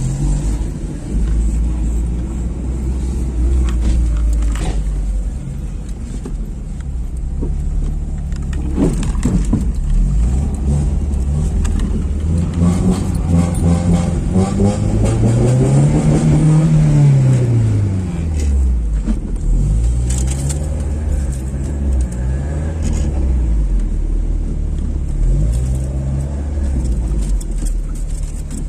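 Deep bass from a car sound system's 18-inch subwoofers playing funk, booming stepped low notes. About halfway through, a bass glide rises and falls.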